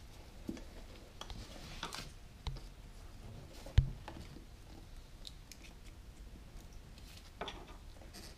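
Small clicks and scrapes of a flat screwdriver prying at a plastic wiring-harness connector to work it apart, with one sharp knock about four seconds in.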